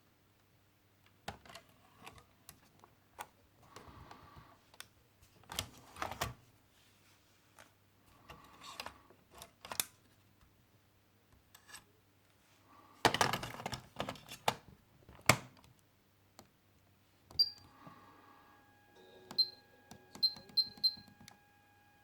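Clicks and knocks from a Pioneer KEX-P820RDS car cassette receiver being operated, its buttons and mechanism clicking irregularly, with several short high beeps and a faint steady tone near the end.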